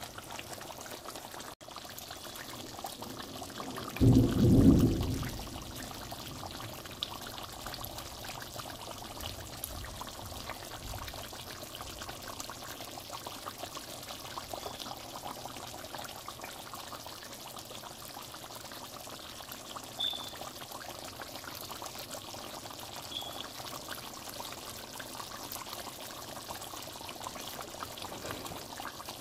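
Thick njansang sauce simmering in a pan with pieces of fried tilapia, bubbling and popping steadily. A low thump comes about four seconds in.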